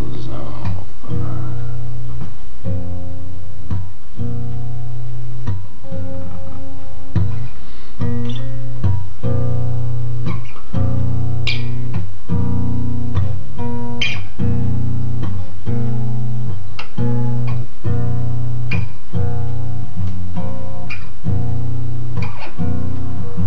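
Acoustic guitar strummed in a steady rhythm, playing a run of chords, with no singing.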